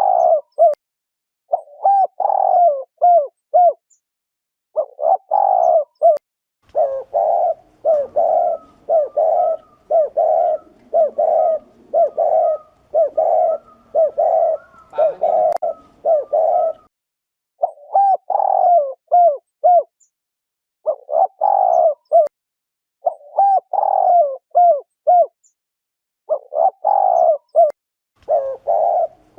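Spotted dove (chim cu gáy) doing its 'gù' coo, the male's excited cooing: short groups of quick, low coos separated by brief pauses, with one long unbroken run of rapid coos near the middle.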